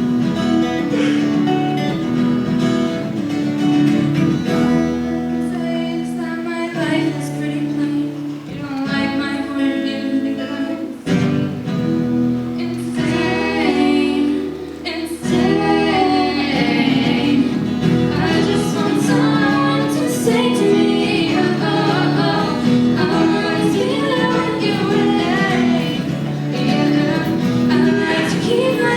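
Acoustic guitar playing with a female voice singing over it, a live song performance.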